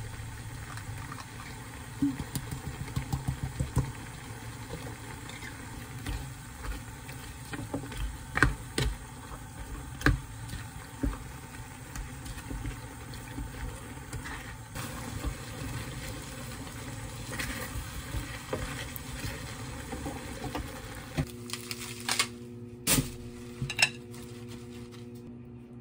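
A spatula stirring and scraping sauced pork and vegetables in a frying pan, with a light sizzle and clicks of the utensil against the pan; a quick run of spoon taps comes about two seconds in. Near the end, hands tear lettuce leaves with a few crisp snaps over a steady low hum.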